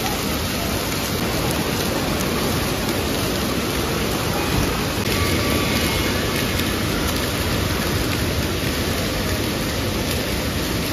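Water from splash-pad fountains and spray jets falling and splashing onto water and wet floor: a steady rain-like rush.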